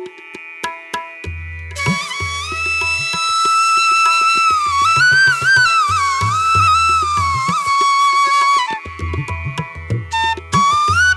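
Background music: a flute-like melody held and bending in pitch over a steady drum pattern.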